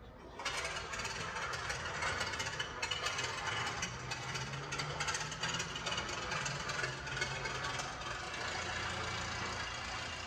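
An engine running with a rough, rattling sound. It starts abruptly about half a second in, and its pitch shifts slightly.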